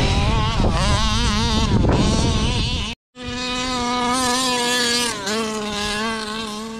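Radio-controlled car motor buzzing at high revs, its pitch wavering as the throttle changes. After a sudden cut about three seconds in, a motor holds a steadier high buzz.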